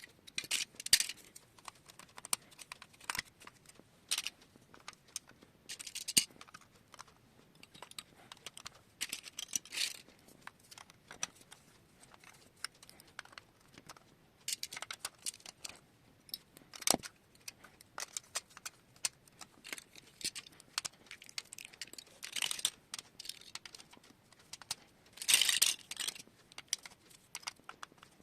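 Plastic marble run pieces and marbles clicking and rattling: scattered sharp clicks with short rattling bursts every few seconds, the loudest about a second in, near six seconds and about twenty-five seconds in.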